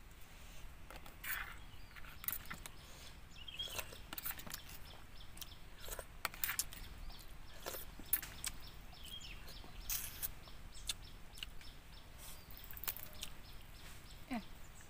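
Close-up eating sounds: lip smacks and wet chewing clicks as food is eaten by hand, in short irregular bursts. A bird calls briefly in the background a couple of times.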